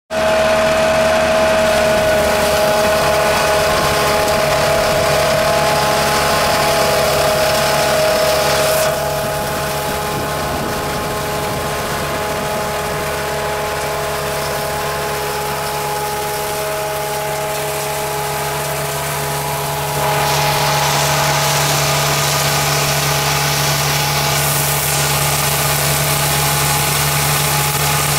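Compact tractor engine driving a WoodMaxx FM-78H PTO flail mower fitted with Y-blades, its rotor spinning as it cuts grass. A loud, steady mechanical drone with a whine, dropping a little quieter about nine seconds in and louder again around twenty seconds.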